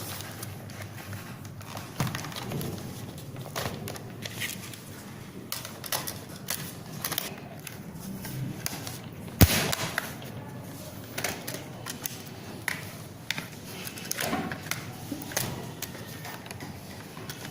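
Scattered clicks and light knocks of hands working on a laptop's plastic case as its cover is put back on, with one sharp, louder knock about halfway through.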